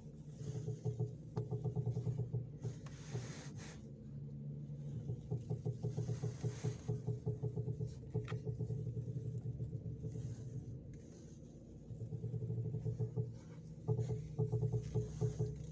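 Ford Focus II steering knocking and creaking in rapid runs of ticks while the steering wheel is turned, in stretches of a few seconds with quieter pauses, over the steady hum of the idling engine.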